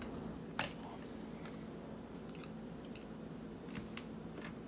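A person chewing food close to the microphone, with one sharp click about half a second in and a few fainter ticks after it.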